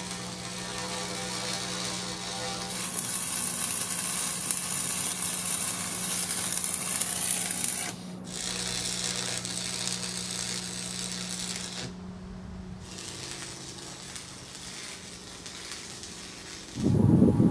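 Arc welding steel with a Lincoln 225 welder: the arc crackles and sizzles over a steady electrical hum, loudest for several seconds in the first half, with abrupt breaks where the sound cuts. A louder, lower noise starts just before the end.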